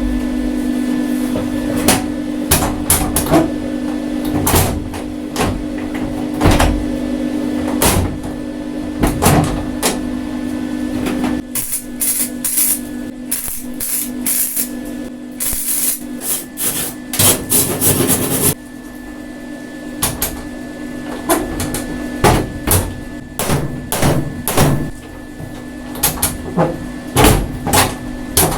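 Irregular knocks and clanks of tools working on metal, over a steady low hum that drops back about halfway through.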